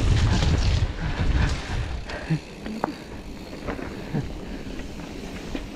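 Wind buffeting the microphone of a camera on a mountain biker riding a dirt trail, with the low rumble of the bike rolling over the ground. The rumble is heaviest for the first second and a half, then eases, with a few light knocks.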